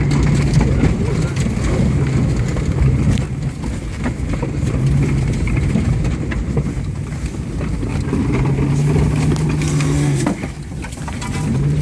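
A 1997 Subaru Impreza's flat-four engine pulling hard over rough ground, heard from inside the car, with a steady engine note that eases off twice, around four seconds in and near the end. Heavy rumble and frequent knocks and rattles come from the car bouncing over the terrain.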